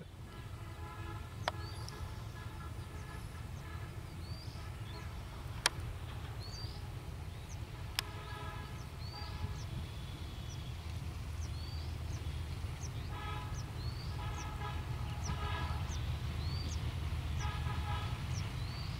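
Broad-gauge diesel-electric locomotive of the Benapole Commuter approaching, its engine a low rumble that slowly grows louder, with several horn blasts, some in short quick toots. A bird's short hooked chirp repeats about once a second.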